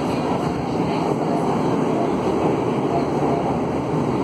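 Steady running noise of a Salvador Metro Line 1 train in motion, heard from inside the passenger car.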